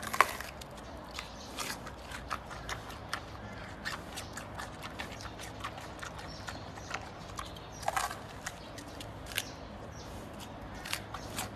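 Giant panda chewing bamboo: irregular sharp crunches and cracks, a few a second, with louder snaps just after the start and again about eight seconds in.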